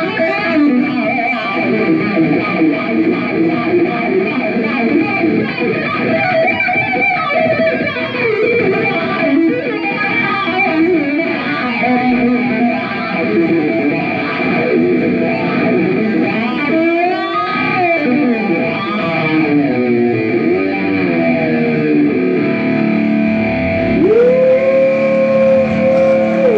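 Unaccompanied electric guitar solo on a double-neck electric guitar, amplified through Marshall stacks: melodic lines with bent and sliding notes. Near the end a note slides up and is held.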